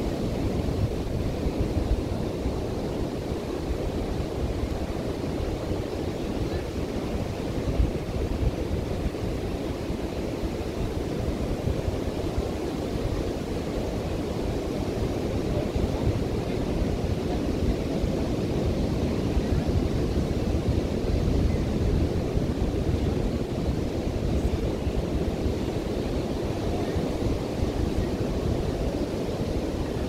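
Ocean surf breaking on the beach as a steady wash, with wind buffeting the microphone and adding a low rumble.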